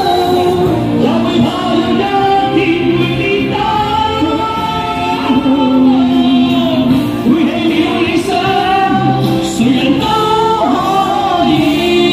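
A singer performing a classic Cantopop song live over instrumental accompaniment.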